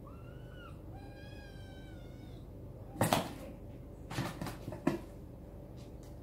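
Ragdoll kittens mewing: a short high mew, then a longer mew that falls slightly in pitch. About three seconds in comes a loud thump, then a few more thumps and scuffles a second later as the kittens tumble in play.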